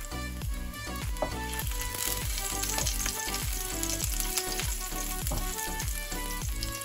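Chopped garlic sizzling in olive oil in a nonstick frying pan, stirred with a silicone spatula, the sizzle growing stronger about two seconds in. Background music with a steady beat plays underneath.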